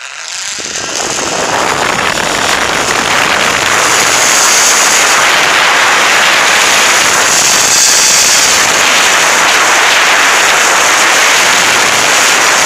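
Zip-line trolley pulleys whirring along a steel cable, with wind rushing over the microphone. The noise swells over the first two or three seconds of the run, then holds steady and loud.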